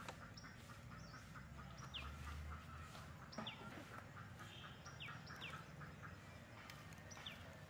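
Faint birdsong: short, high, down-slurred chirps repeated about five times, over a fast, steady, faint ticking.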